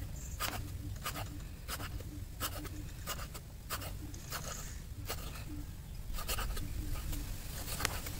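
Cleaver chopping raw pork on a round wooden chopping board: a steady run of short knocks, about one every half second, as each stroke cuts through the meat into the wood.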